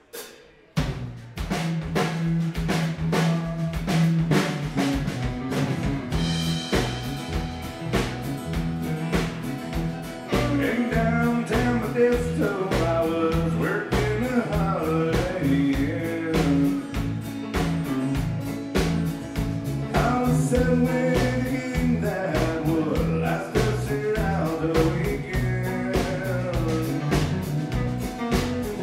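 Live country band starting a song about a second in and playing on: drum kit keeping a steady beat under electric and acoustic guitars, with a bowed fiddle line.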